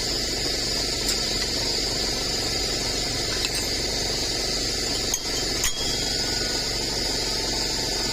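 Worn rear brake pads of a 2016 Ford Expedition being pulled from the caliper bracket: four light metallic clinks, the last ringing briefly, over a steady background hiss.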